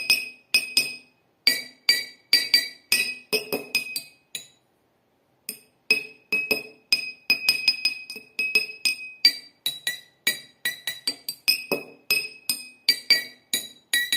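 Drinking glasses holding different amounts of water, struck with a pen to play a melody. It is a quick run of bright ringing clinks at several different pitches, with a break of about a second shortly before the middle.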